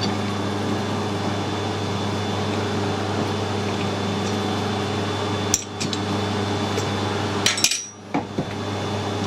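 A steady electrical hum, with a sharp metal clink about five and a half seconds in and a quick cluster of clinks near the end, as a steel bar is set in a four-jaw lathe chuck and the chuck key is handled. The hum dips briefly right after the last clinks.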